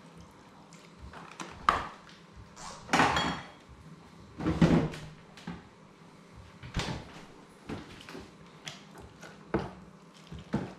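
Potatoes being mashed and mixed with milk in a pot: the utensil knocks and scrapes against the pot in irregular clunks, the loudest about three and four and a half seconds in.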